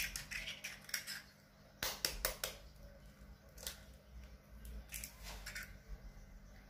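Eggs being cracked open with a fork over a ceramic bowl: a few sharp taps and cracks of eggshell, with a quick cluster about two seconds in and single taps later.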